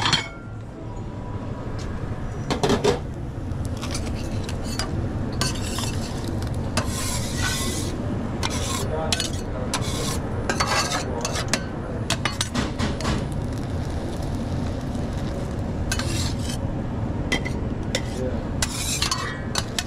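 Breakfast cooking: metal utensils clinking and scraping against pans and dishes while food sizzles, over a steady low hum. There are a few longer scrapes, about seven seconds in and near the end.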